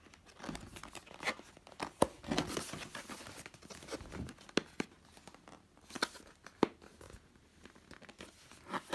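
Clear plastic shrink-wrap being torn and peeled off a cardboard box, crinkling with sharp crackles throughout and a longer tearing rustle about two to three seconds in.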